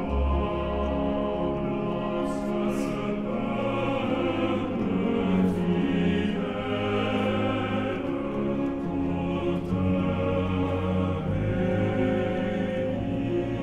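Background music with long held notes and a steady level.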